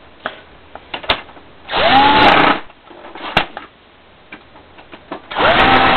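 Power screwdriver driving screws into plastic, in two short runs of about a second each. In each run the motor's whine rises quickly and then holds. Small clicks and handling knocks come between the runs.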